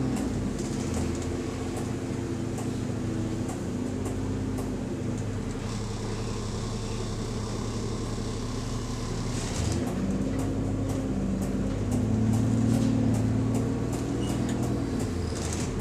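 A bus engine running, heard from inside the passenger cabin. Its pitch shifts up and down as engine speed changes, with faint ticking over it and a short hissing burst about two thirds of the way through.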